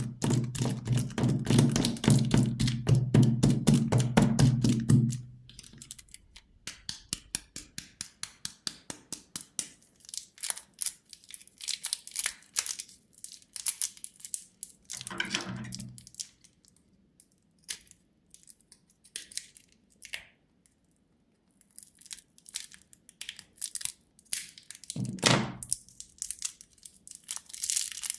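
Candy being handled for ASMR: a loud, rapid clatter of clicks for the first few seconds, then quieter scattered crinkling and tearing of plastic wrappers, with two short dull thunks.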